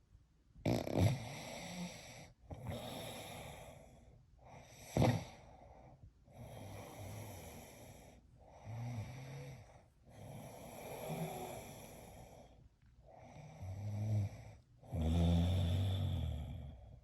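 Snoring: a run of about eight noisy breaths, each one to two seconds long with short gaps between, some carrying a low buzz. There is a sharp peak about five seconds in, and the last snore is long and among the loudest.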